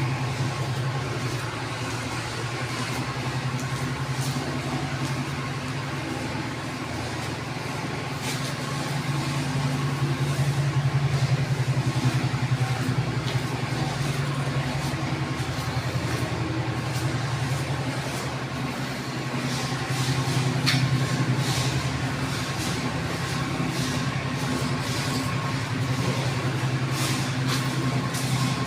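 A steady low mechanical hum like a running engine or motor, with faint scattered clicks and ticks over it.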